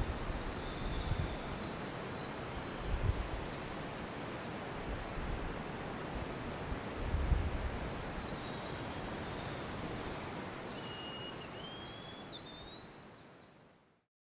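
Thin, high whistled notes of a wallcreeper, several short glides and, about eleven seconds in, a longer rising whistle, over a steady rushing background with a few low bumps. The sound fades out just before the end.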